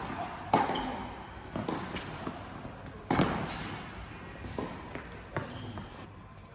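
A tennis ball struck by racquets during a rally on an indoor hard court. Two sharp hits come about half a second and about three seconds in, each echoing in the large hall, with fainter ball bounces and footsteps between them.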